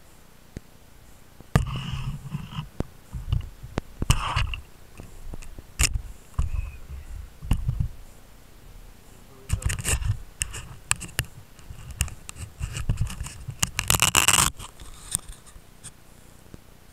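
Handling noise picked up by a camera mounted on a model seaplane: irregular knocks, bumps and scrapes as the plane is handled against wooden dock boards, with a longer, louder scrape near the end.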